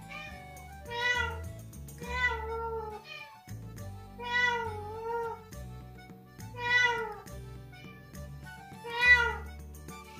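Two domestic cats meowing back and forth, about five meows spaced roughly two seconds apart, several of them drawn out with a wavering, rising-and-falling pitch; one is a brown tabby's warbling meow. Soft background music runs underneath.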